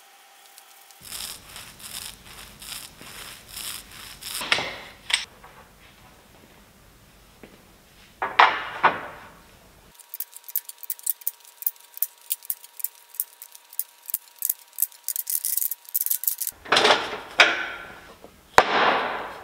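Glue-up of hardwood strips: a glue roller rubbing back and forth along the board edges in strokes about twice a second, then the strips knocking and clattering as they are set into a clamp rack, with a few longer scraping sweeps.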